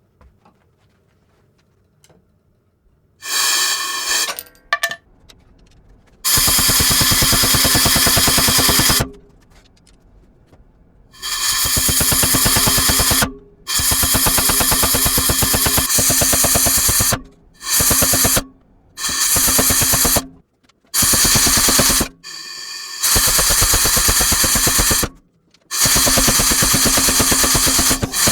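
Power hammer pounding hot steel in rapid, even blows, running in repeated bursts of one to three seconds with short pauses between them.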